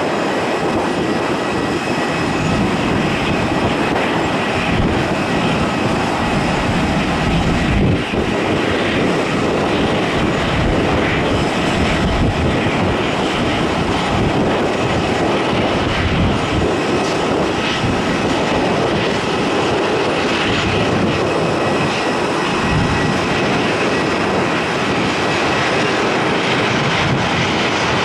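Airbus A320 jet engines on landing approach, touchdown and rollout: a steady rush of engine noise with a faint high whine.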